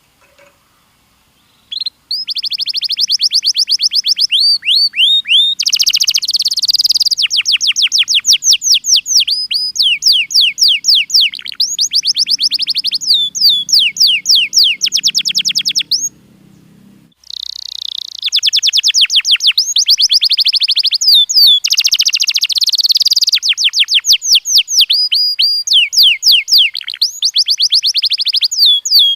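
Domestic canary singing: long trills of rapid, repeated high notes, starting about two seconds in. There is a short pause a little past halfway, then the song picks up again.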